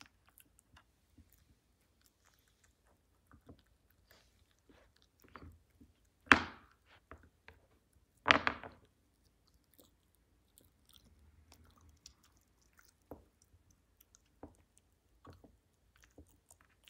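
A Samoyed puppy chewing a twisted chew ring: scattered quiet clicks and crunches of teeth, with two louder crunches in the middle, about two seconds apart.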